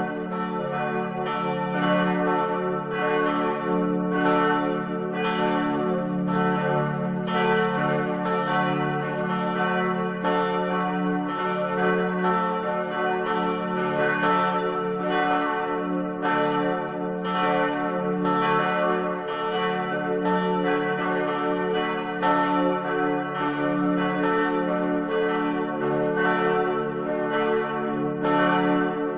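Church bells ringing, a fresh stroke about every two-thirds of a second, each ringing on and overlapping the next.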